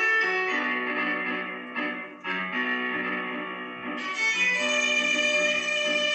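Instrumental music: a bowed violin melody over a plucked-string accompaniment. The sound grows fuller and brighter about four seconds in.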